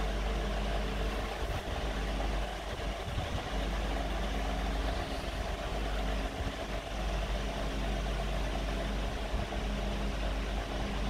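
A steady low mechanical hum with a deep drone under it.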